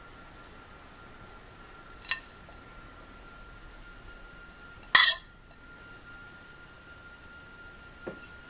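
A spoon clinking against dishes while spooning stuffing into idli moulds: a light clink about two seconds in, a louder brief clatter about five seconds in, and a soft tap near the end.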